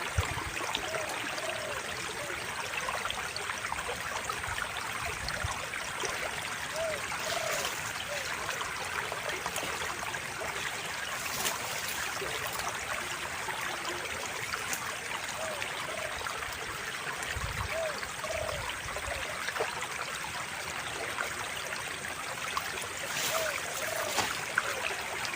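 Water of a small stream running and trickling steadily, with short faint chirps every few seconds.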